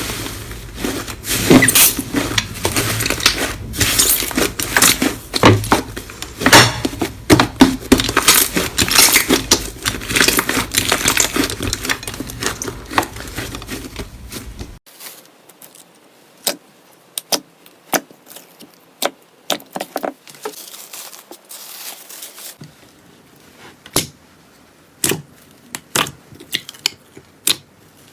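Slime being pressed and worked by hand, giving a dense run of crackling and popping. About halfway through it cuts to a quieter clip with only sparse, single sharp pops and clicks.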